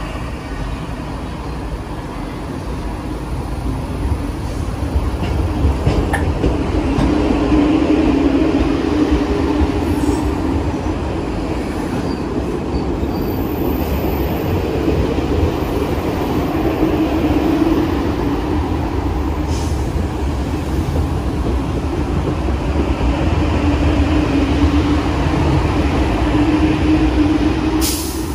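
MBTA Red Line subway train moving slowly along the platform, a steady rumble with a hum that swells and eases several times. A sharp click sounds near the end.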